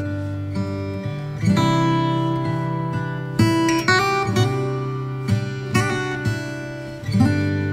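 Background instrumental music of strummed acoustic guitar chords, with a new chord struck every second or two.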